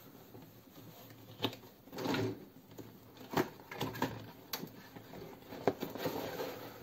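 Cardboard model-kit box being opened by hand: the lid rubs and slides off its base with a brief scraping swish about two seconds in, amid several light taps and knocks as the box is handled.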